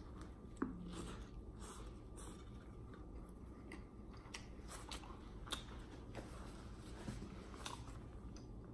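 A person biting into and chewing a soft white-bread tuna sandwich: faint, scattered mouth clicks of chewing, with a sharper tick near the start.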